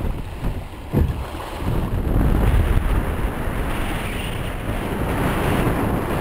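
Wind buffeting the microphone and water rushing and splashing along the hulls of a small sailing trimaran under way, with a single thump about a second in.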